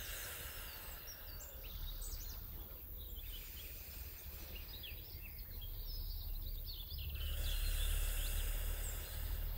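Outdoor ambience: a low wind rumble on the microphone that swells near the end, with faint scattered bird chirps.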